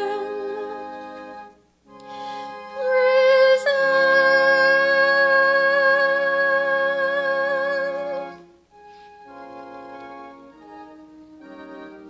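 Close of a sung Easter solo: a woman's voice holds the final note with vibrato over a sustained organ-style accompaniment chord, which cuts off about eight seconds in. Softer organ chords carry on after it.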